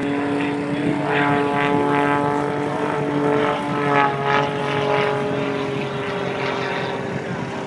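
Propeller airplane engine droning at a steady pitch, which drops slightly a little past halfway.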